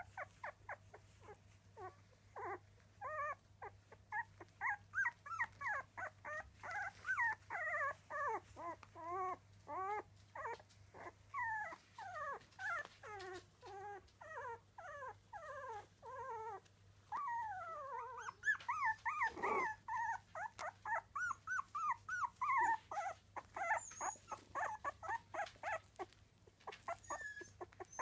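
Three-week-old miniature dachshund puppies whimpering and squeaking almost without pause: several short high cries a second, each sliding up or down in pitch, with one louder, deeper cry about two-thirds of the way through.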